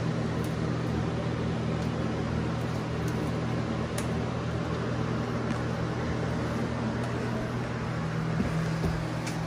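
A steady mechanical hum, like a fan or air-handling unit running, with a few light clicks, the clearest about four seconds in.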